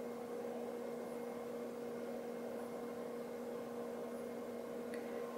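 Steady low electrical hum with a second, higher tone above it, over a soft background hiss; a faint small click near the end.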